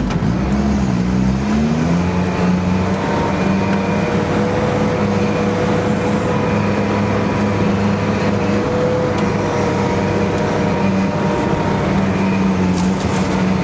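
Sherp all-terrain vehicle's engine running under way, dropping in speed just after the start and then settling into a steady, even drone.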